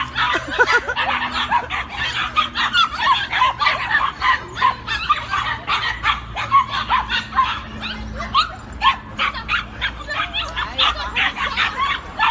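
A litter of puppies yipping and whimpering over one another in a high-pitched chorus of many short calls, with no break.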